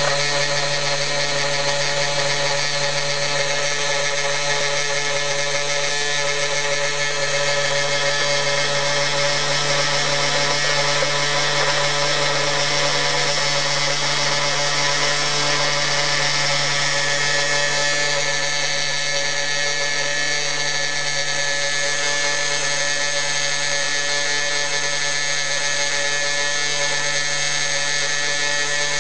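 Homemade CNC milling machine running, its 2D-7 electric motor spindle giving a steady whine made of several tones, unchanging throughout.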